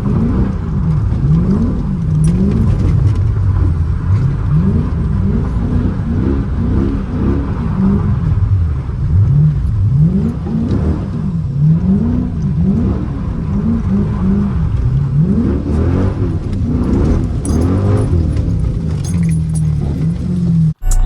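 Dodge Charger R/T's V8 engine revved up and falling back again and again, each rise and fall lasting about a second; the sound cuts out briefly just before the end.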